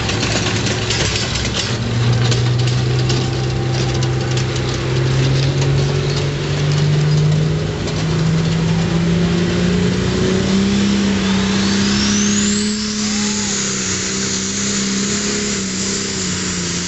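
Diesel pulling-tractor engine revving, its note climbing slowly and evenly for about ten seconds and then holding high. A high whine rises sharply about twelve seconds in.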